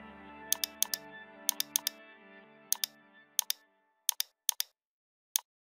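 Computer keys clicking sharply in quick groups of two or three, over background music that fades out about four seconds in.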